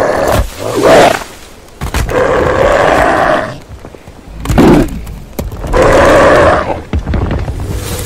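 Sound effect of Trevor Henderson's creature Big Charlie: long, drawn-out calls alternating with shorter rising cries, repeating about every four seconds.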